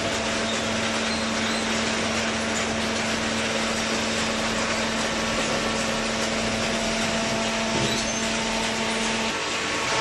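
Hydraulic baler machinery running in a factory: a steady mechanical noise with a low, steady hum that stops about nine seconds in, and a brief thud shortly before.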